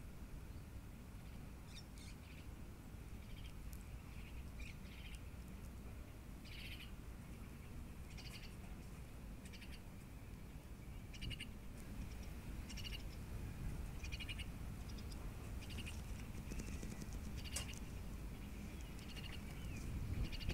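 A bird giving short, rapid chirping calls, repeated every second or two, over a steady low rumble.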